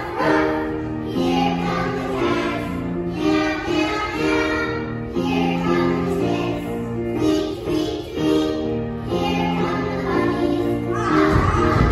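A group of young children singing a song together in unison, over an instrumental accompaniment of held, sustained notes.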